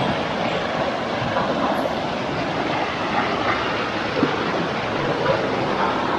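Steady rush of water tumbling along a rocky hill stream, a continuous hiss with a few faint knocks.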